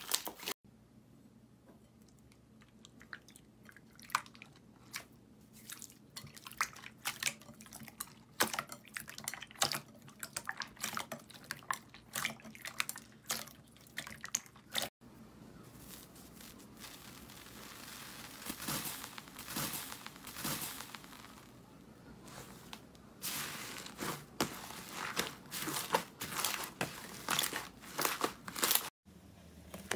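Hands squeezing and pressing slime: a string of irregular clicks, pops and crackles, denser in some stretches and sparse in others. The sound cuts out for a moment about halfway and again near the end.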